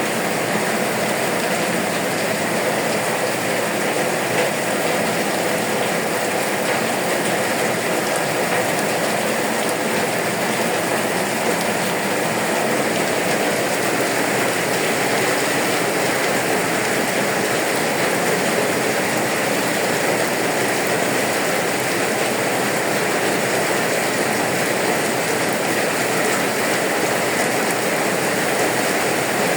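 Rain falling steadily, an even continuous hiss.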